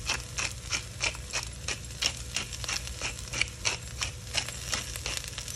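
Pepper grinder being twisted by hand, its mill grinding in a steady run of crisp clicks, about three to four a second.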